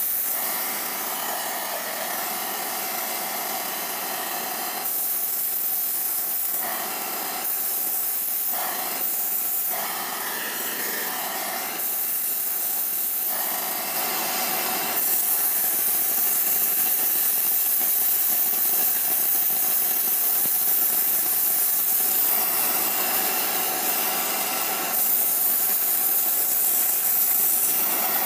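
Oxy-acetylene powder spray torch hissing steadily while it sprays metal onto a worn shaft end to build it up. Through the middle the hiss switches between fuller and thinner spells every second or two, then it holds steadier and louder.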